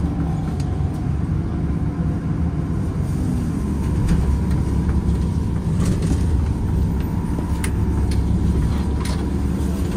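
Interior of a Nova Bus LFS city bus under way: steady engine and road noise, with a faint steady whine and a few sharp rattles or clicks in the second half.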